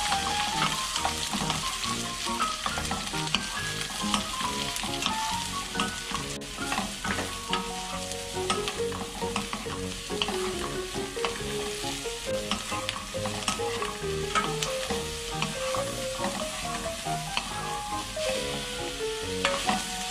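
Button mushrooms and onion sizzling in olive oil in a nonstick frying pan while being stirred and tossed with a wooden spatula and wooden chopsticks, with frequent small clicks and scrapes of the wood against the pan.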